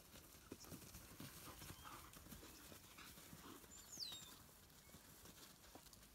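Faint scuffling and soft footfalls of African wild dogs playing and chasing in dry grass, with a single short, high squeak that falls in pitch about four seconds in.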